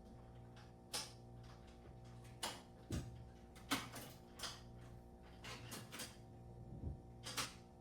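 Irregular sharp clicks and knocks, about eight of them, from hands working on a metal tool cart and its parts, over a steady low hum.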